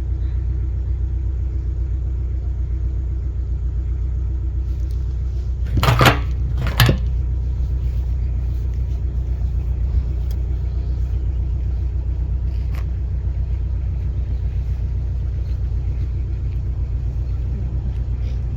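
Narrowboat diesel engine running steadily at low revs, with two sharp knocks about six seconds in, less than a second apart.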